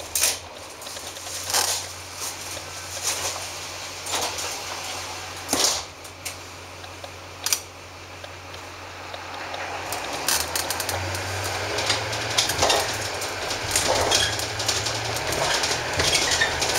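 The bus's GM Duramax 6.6 L diesel engine idling steadily, heard from inside the cabin, with a few sharp clicks and knocks. About ten seconds in, the engine note rises and grows louder as the bus pulls away, and the body starts to rattle.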